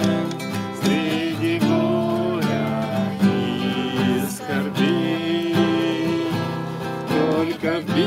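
Nylon-string classical guitar strummed steadily while voices sing a song along with it, with long held sung notes.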